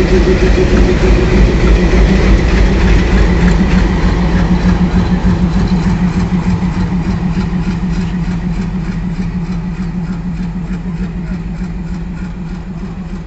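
WDM3D diesel locomotive running light as it pulls away, its engine giving a steady low pulsing note. The sound fades gradually from about four seconds in as the locomotive moves off.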